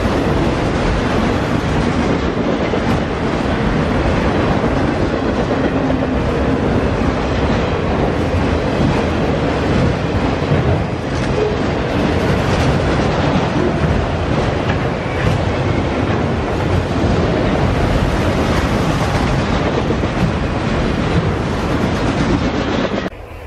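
Freight train of autorack cars rolling past close by, steel wheels rumbling and clacking on the rails in a steady din that cuts off abruptly near the end.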